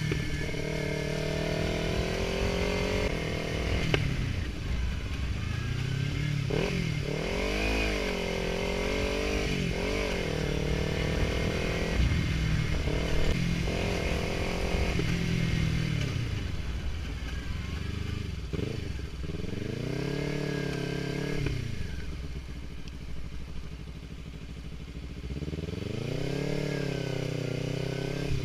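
Kawasaki Ninja 300's parallel-twin engine running, its revs rising and falling several times.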